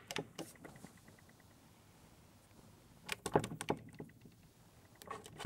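Faint light clicks and taps: a few scattered in the first second, then a quick run of taps about three seconds in and a few more at the very end.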